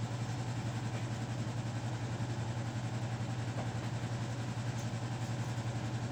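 Air conditioner running with a steady low hum and an even rushing noise; noisy, like an airplane.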